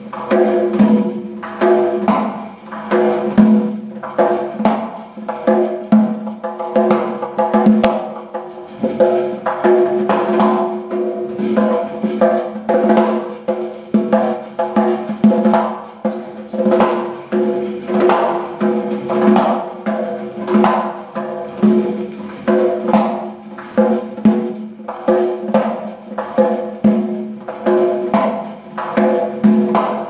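Uzbek doira, a large frame drum, played by hand in a fast, unbroken rhythm: dense finger strokes on the skin with louder accented beats about once a second, the drum head ringing under them and its metal jingle rings adding a bright hiss.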